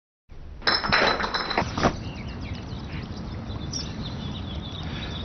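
Birds chirping over a steady outdoor background, after a short burst of loud, sharp clinking sounds in the first two seconds.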